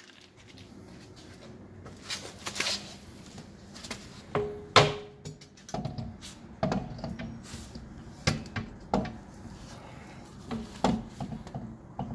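Scattered knocks and metal clanks of hand tools and car parts being handled, about a dozen in all, the loudest about five seconds in with a brief metallic ring.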